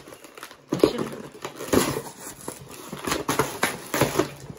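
Paper wrapping rustling and crinkling as it is torn off boxes by hand, in a series of short irregular bursts starting about a second in.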